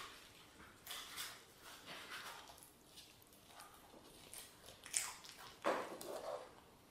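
Faint, irregular snuffling and shuffling of a small dog nosing along a hardwood floor, with two louder noises about five seconds in.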